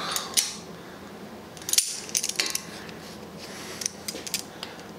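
Vise grips (locking pliers) clinking and clicking against a cast-iron treadle leg bolt as they are clamped on and worked. A scattered string of sharp metallic clicks, the loudest cluster about two seconds in.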